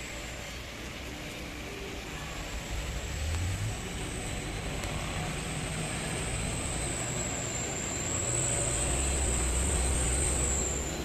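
Engine of a minibus running as it climbs through a wet hairpin bend, growing louder about eight seconds in, over a steady hiss of tyres on wet road.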